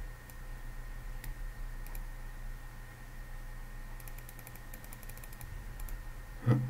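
Computer mouse clicks: a few single clicks, then a quick run of rapid clicks about four seconds in, over a faint steady electrical hum. A brief loud voice sound comes near the end.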